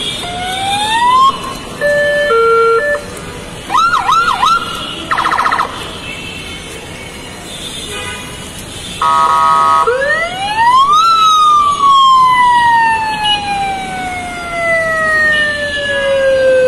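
Aftermarket VIP horn and siren system on a car, worked from its wireless remote and cycling through its tones: a short rising whoop, stepped two-note beeps, three quick yelps, a brief buzz and a steady horn blast. About ten seconds in it starts a long siren wail that rises for a second and then falls slowly.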